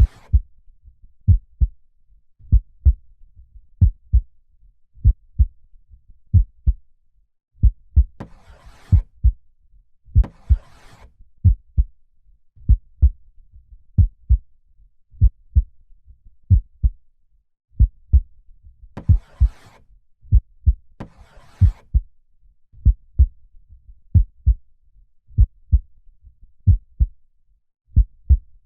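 A human heartbeat beating steadily in lub-dub pairs, about one beat a second. A slow breath in and out is heard twice, about eight seconds in and again about nineteen seconds in.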